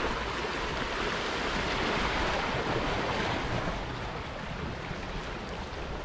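Sea surf washing against the rocks, a steady rushing that eases off a little about three and a half seconds in, with wind on the microphone.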